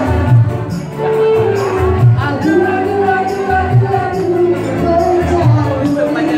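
Live music: a woman singing through a microphone and PA over an amplified backing with a steady bass beat.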